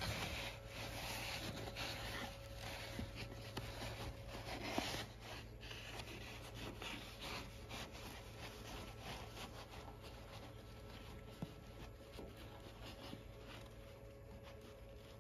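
Awning fabric rustling and sliding over the sewing machine's table as hands smooth it and feed its edge in, busiest in the first five seconds, over a faint steady hum.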